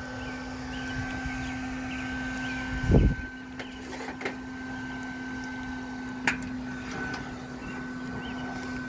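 A steady machine hum holding two constant tones, one low and one higher, with a heavy thump about three seconds in and a few sharp knocks or clicks after it.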